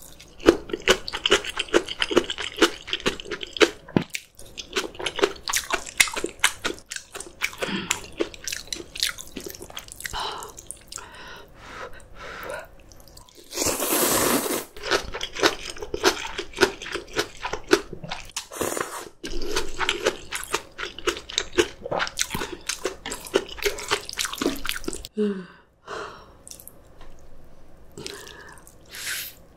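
Close-miked eating: crunchy bites and chewing of kimchi and noodles, irregular wet clicks throughout, with one longer, louder slurp of noodles about fourteen seconds in.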